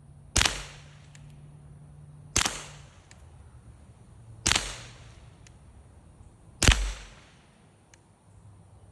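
Taurus TX22 Competition .22 LR pistol firing four single shots at a slow, even pace, about two seconds apart, each with a short echo trailing off. The last shot is the loudest.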